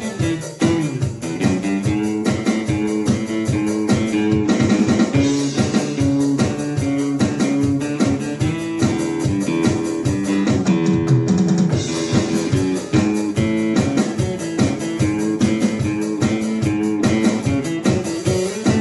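Live instrumental band: two acoustic guitars playing a lively tune over a steady, quick beat on an electronic drum kit.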